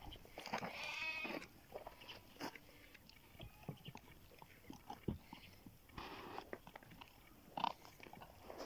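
Shepherd-dog puppies gnawing on bones, with faint scattered cracks and crunches. About a second in, a short animal call is heard.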